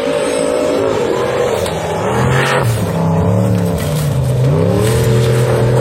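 Racing car engine running hard through a timed run, its pitch dropping and climbing again twice as the throttle is eased and reapplied.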